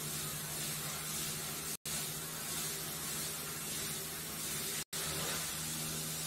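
Two small propellers on a variable-pitch rotor pendulum spinning steadily: an even rush of air with a low, steady motor hum. The sound cuts out for an instant twice.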